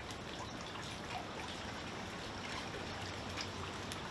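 Steady, even background hiss with faint scattered ticks; no single sound stands out.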